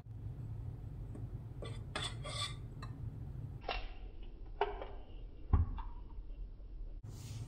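A few light clinks and sharp knocks at a glass mixing bowl of flour as an egg is cracked into it, the loudest a dull knock a little past two-thirds of the way through.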